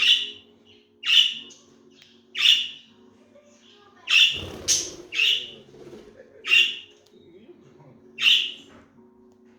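Budgerigars giving short, sharp squawking calls, about eight of them at irregular intervals a second or so apart.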